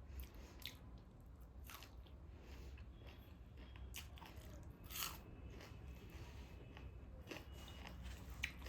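A person chewing and biting food close to the microphone, with soft crunches scattered through, a sharper one about five seconds in.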